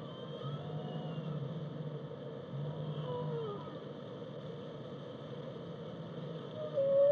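Whale calls: a few faint short gliding calls, one sliding downward about three seconds in, over a steady low rumble. Near the end a loud, long call with overtones begins.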